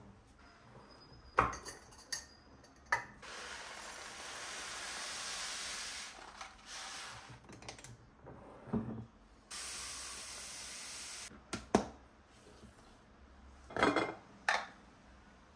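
Kitchen things being handled: several sharp clinks and knocks of dishes and containers being set down. Twice there is a few seconds of steady rushing noise, like water running or a spray.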